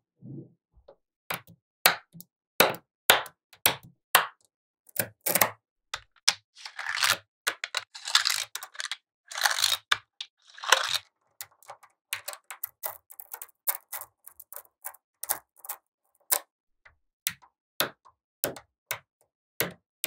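Small magnetic balls clicking and snapping together as hand-built magnetic-ball blocks are pressed and stacked: sharp clicks at irregular intervals, with a few longer rattling stretches in the middle.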